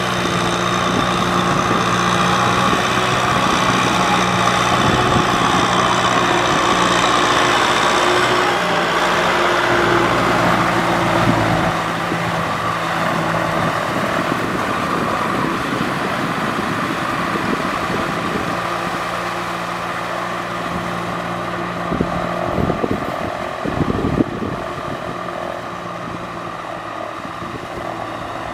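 Kubota M6040SU tractor's diesel engine running steadily under load as it pulls a rotary cultivator through paddy mud. It is louder for the first twelve seconds or so, and a few sharp knocks come about three-quarters of the way through.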